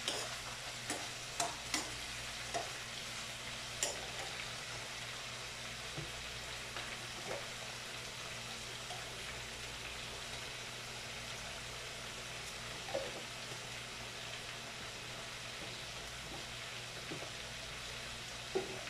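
Sliced bitter gourd (ampalaya) sizzling as it stir-fries in a frying pan, with a steady hiss of frying. During the first few seconds a spatula scrapes and taps against the pan, and a few lighter knocks come later.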